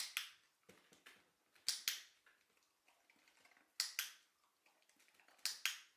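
A dog-training clicker clicking four times, about every two seconds, each a sharp double click, marking the dog's correct position on the support.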